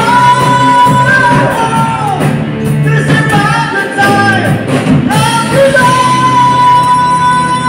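Live rock band playing, with a male lead singer belting a song and holding long, steady notes over guitar, bass, keyboard and drums.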